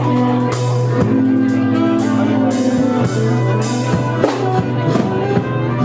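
Live band playing: drum kit with cymbal hits over sustained bass notes and guitar.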